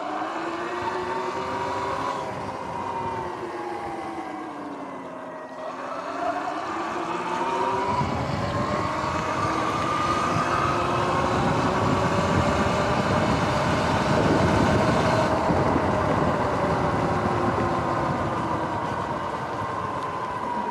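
Sur-Ron Light Bee X electric dirt bike's motor whining, its pitch falling as the bike slows and rising again as it picks up speed. Tyres hiss on the wet road, much louder from about eight seconds in.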